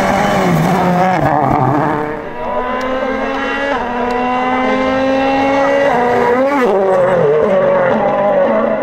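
2017 World Rally Car engines at full throttle, turbocharged 1.6-litre four-cylinders: a Citroën C3 WRC on gravel, then, after a cut about two seconds in, a Ford Fiesta WRC accelerating hard. The Fiesta's engine note rises steadily, with two quick upshifts where the pitch drops back, about four and six and a half seconds in.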